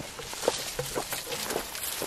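Footsteps through dry brush and twigs: irregular crackles and rustles of dry stems snapping and brushing underfoot as a person walks.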